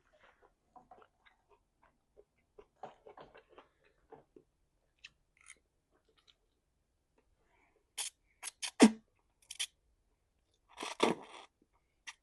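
A person chewing and eating Korean short ribs (kalbi), the mouth noises faint at first. A quick cluster of sharp clicks comes about eight seconds in, and a louder, rough burst lasting under a second about eleven seconds in.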